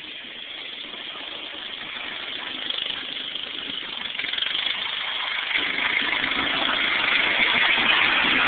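John Deere riding lawn tractor's engine running as the mower drives up, growing steadily louder and fuller as it comes close, right by the end.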